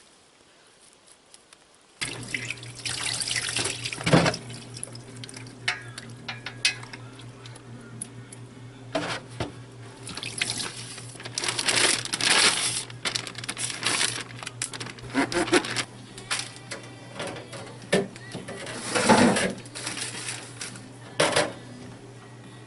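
Water running at a sink with dishes and pans clattering, over a steady low hum that starts suddenly about two seconds in.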